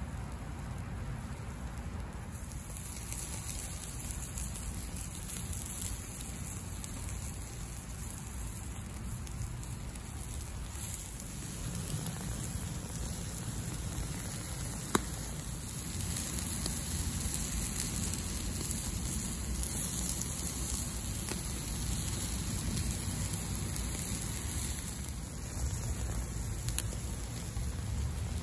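Marinated chicken sizzling on a charcoal grill over high heat, a steady hiss, with one sharp click about halfway through.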